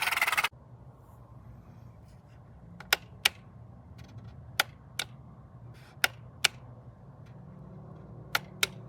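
Four pairs of sharp clicks, each pair a few tenths of a second apart, over a faint low hum. A louder sound cuts off about half a second in.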